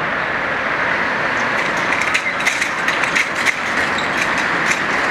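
Class 31 diesel locomotive working hard in the distance: a steady engine noise with no clear pitch. From about two seconds in, a run of sharp clicks sounds over it.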